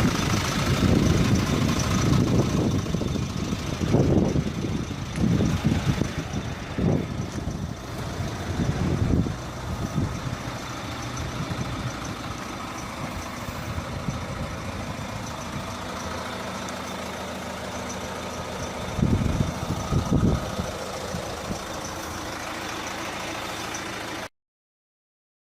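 Peugeot 407's 1.6 HDi four-cylinder diesel engine running, with several brief louder low surges over a steady running note. The owner asks about this noise coming from the engine, and its cause is not yet known. The sound cuts off suddenly near the end.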